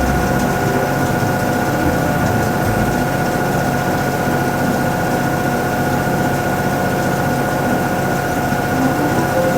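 Toshiba ZABOON top-loading washing machine running mid-cycle: a steady motor hum with a constant whine over it.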